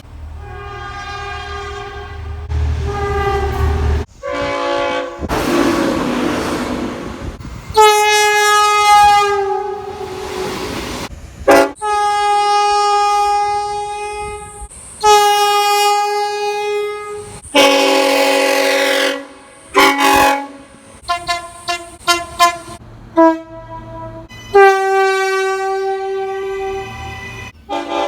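Train horns blowing in a string of short recordings cut one after another: sustained multi-note chords held for a few seconds each, and a quick run of short toots a little past the middle. Between blasts there is a low rumble and rushing noise of moving trains.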